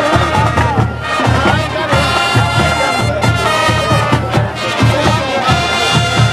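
Marching band playing: brass horns over a steady drum beat.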